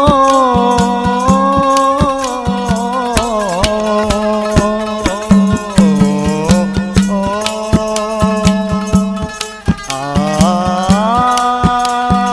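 Instrumental interlude of a North Indian folk bhajan: a melody instrument plays a sliding, bending tune over a steady, quick drum beat of about four strokes a second.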